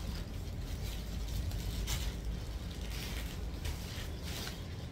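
Cloth rustling in short strokes as garments are handled, over a steady low background hum.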